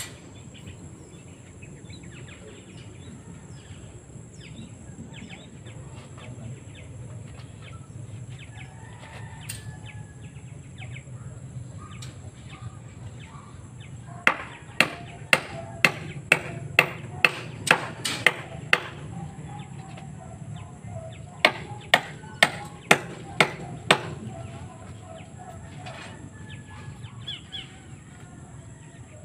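Hammer driving nails into coconut lumber: two runs of quick, even blows, about a dozen starting some 14 seconds in and about seven more a few seconds later, two to three blows a second. Birds chirp faintly throughout.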